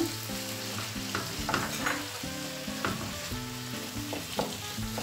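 A wooden spoon stirring and breaking up raw minced chicken and minced beef in a frying pan of grated carrot and tomato, which sizzles in the pan. Sharp clicks of the spoon against the pan come several times.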